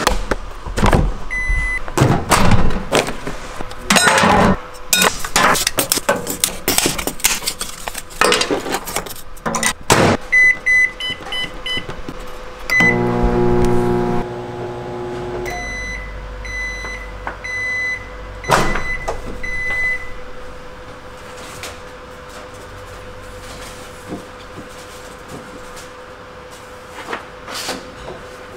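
Hamilton Beach microwave oven: clicks and knocks as it is plugged in and handled, then short high keypad beeps. About thirteen seconds in, a loud buzzing hum starts as the oven switches on. It settles after a few seconds into a steadier, quieter running hum, with more beeps and a few clicks at the door near the end.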